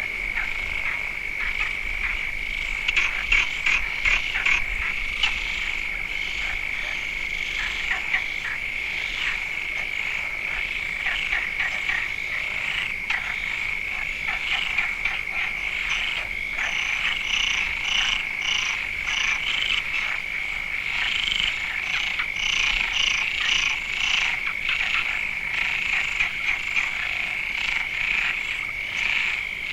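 Chorus of many frogs calling over one another, with a continuous high trill underneath and dense short calls overlapping throughout.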